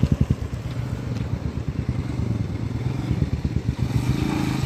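Royal Enfield Himalayan's single-cylinder engine thumping as the motorcycle rides over gravel toward the listener. It grows louder and rises in pitch near the end.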